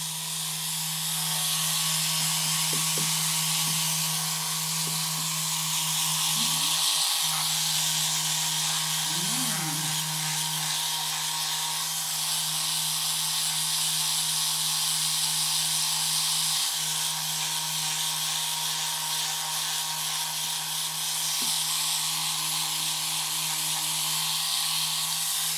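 Handheld percussion massage gun running against the shoulder and upper back, a steady low motor hum with a hiss above it.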